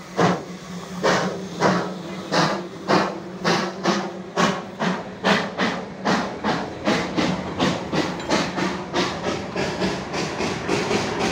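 Darjeeling Himalayan Railway narrow-gauge steam locomotive chuffing as it pulls away, its exhaust beats quickening from about two a second to three or four a second as the train gathers speed, over a steady hiss of steam.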